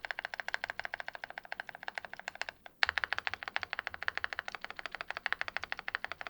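Long stabilized keys on an OwLab x Mr. Suit gasket-mount custom keyboard with lubed 43 Studio Popu switches, pressed rapidly and repeatedly in a fast run of clacks. The stabilizers are lubed with Permatex 22058. After a short break about three seconds in, a louder, deeper-sounding key takes over.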